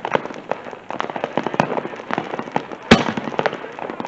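Fireworks going off: a rapid, irregular crackle of small pops, with one louder bang about three seconds in.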